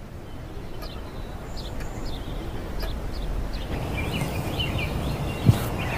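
Outdoor ambience: birds chirping in short calls over a steady low background noise, with one dull thump about five and a half seconds in.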